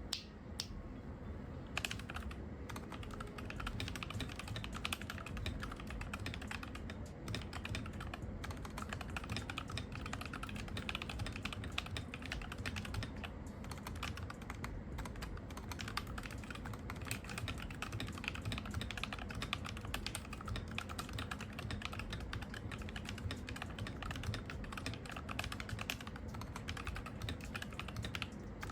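Typing on a Redragon FIDD 8K hall-effect keyboard with magnetic switches, modded: a fast, continuous stream of key clacks with no pauses.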